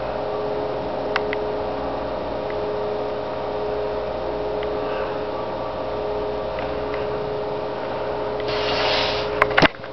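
Steady electrical hum with two faint steady tones over a low hiss, from the computer and camera setup. Near the end a brief rustle and a sharp click.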